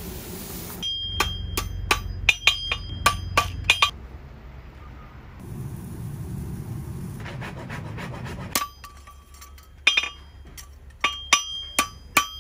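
Farrier's hammer striking a steel horseshoe on an anvil, each blow ringing. There is a quick run of about a dozen strikes, a pause of a few seconds, then another irregular run of blows near the end.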